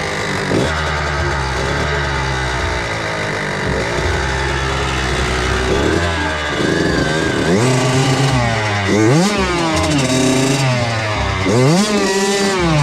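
Kawasaki KX85 two-stroke motocross engine running at a low, steady pitch, then revving up and dropping back sharply several times in the second half.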